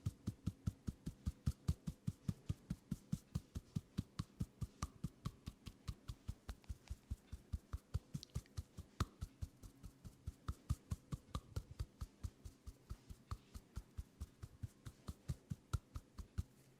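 Percussive massage strokes: hands tapping or slapping on skin in a quick, even rhythm of about four to five strokes a second. The strokes stop just at the end.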